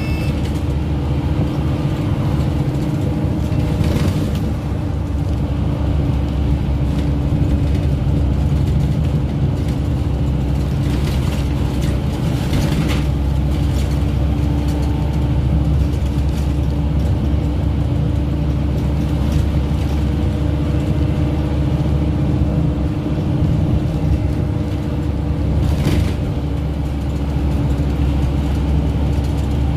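Scania Omnicity N270UD double-decker bus's five-cylinder diesel engine, heard from inside the saloon, running steadily under power at speed. A few brief rattles from the bus body come through over it.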